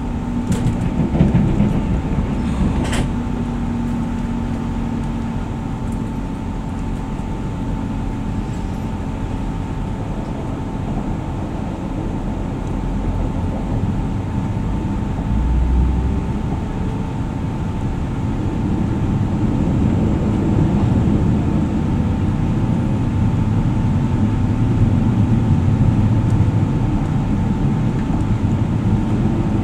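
Cabin noise inside a moving Class 175 diesel multiple unit: the underfloor diesel engines running and the wheels rumbling on the rails, with a steady whine and a couple of clicks in the first few seconds. The noise grows louder over the second half.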